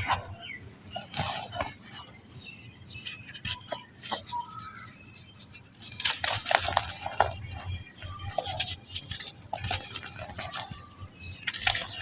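Balls of soft black sand being crushed and crumbled by hand, giving irregular crisp crackles and gritty crunches in bursts, with the busiest crumbling about halfway through.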